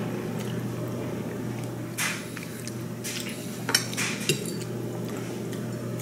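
A few light clinks and knocks of tableware being handled on a table, one about two seconds in and a couple more a little later, over a steady low hum.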